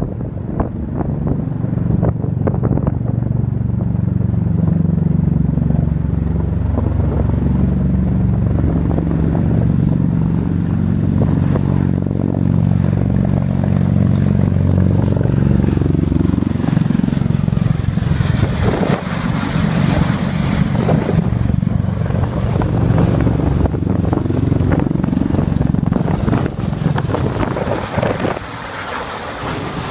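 Two Bell Boeing V-22 Osprey tiltrotors flying low overhead, their proprotors and turboshaft engines sounding loud and steady with a low, many-toned drone. A high turbine whine comes in about two-thirds through and falls in pitch as the nearer aircraft passes close, and the sound drops a little just before the end.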